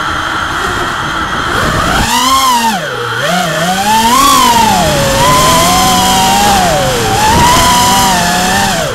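Electric motors and propellers of a small FPV quadcopter, heard from its onboard camera: a buzzing whine whose pitch rises and falls with the throttle, dipping low about three seconds in and again near the end.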